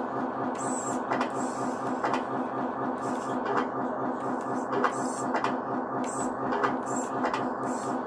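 Simulated diesel engine idle from the RC CAT 140H grader's sound module: a steady, rhythmic chugging with a few sharp clicks scattered through it.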